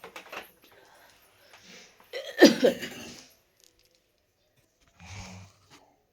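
A person coughing, one loud cough about two seconds in, from someone sick with a cold. A fainter short low sound follows about five seconds in.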